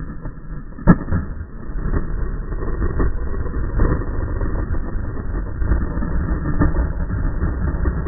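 Skateboard wheels rolling over stone paving with a steady low rumble, and one sharp wooden clack of the board about a second in.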